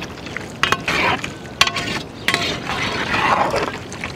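A perforated metal ladle stirring chicken curry in a large metal pot: wet sloshing of the gravy, with several sharp clinks of the ladle against the pot.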